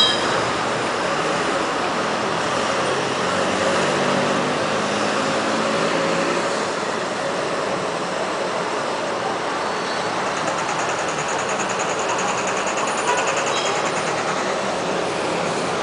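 Fire truck's diesel engine running as the truck moves slowly along the street, heard from high above amid steady city traffic noise; the truck has a mechanical fault.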